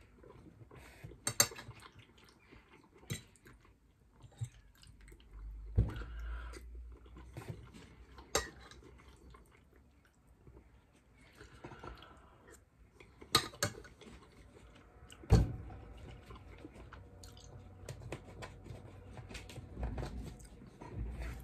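Close-miked chewing and eating of pasta with meat sauce, with a few sharp clicks of cutlery against a plate or bowl scattered through it.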